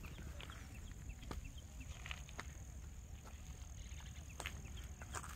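Outdoor ambience: a steady low wind rumble on the microphone, with scattered faint chirps and a few sharp clicks.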